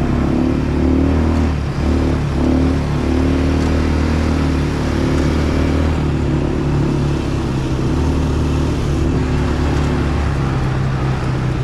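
ATV engine running steadily while ridden along the trail, its note stepping slightly up and down now and then.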